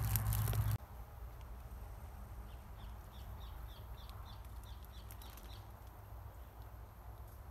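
Loud rustling and handling noise with a low rumble that cuts off abruptly under a second in. It gives way to quiet forest-floor ambience with a run of short high chirps, about three or four a second, for a few seconds in the middle.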